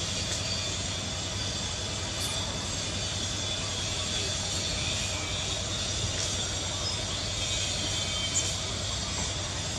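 Steady outdoor background drone and hiss, even throughout, with no distinct calls or knocks.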